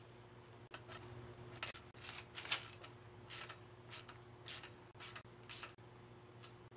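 Steel parts of a folding bike's frame latch clicking and scraping against each other as a bent rod and its sleeve are worked by hand on the hinge plate. There are about eight short metallic scrapes, roughly two a second, starting about one and a half seconds in.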